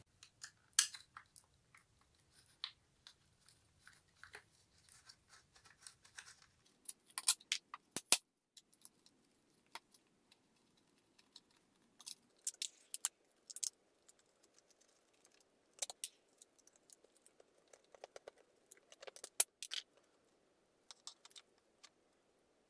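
Scattered clicks, scrapes and small knocks of a screwdriver backing screws out of an electric scooter battery's plastic case. The case lid is then handled and lifted open.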